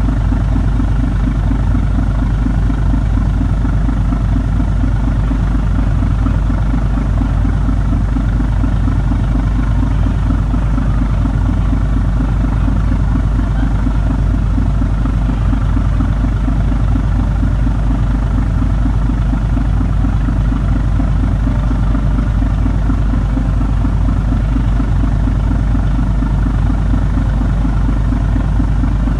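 Sightseeing cruise boat's engine running steadily underway, a deep rumble with a fast, even throb.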